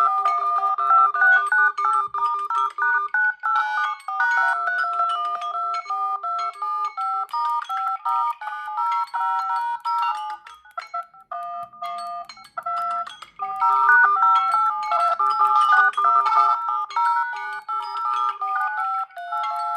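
Smartphone ringtone: an electronic melody of short, quick notes, repeating. The melody thins out and drops in level about eleven seconds in, then picks up again.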